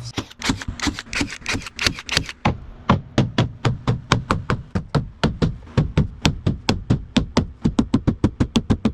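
Rapid, even knocking, about four to five sharp strikes a second, getting a little quicker near the end.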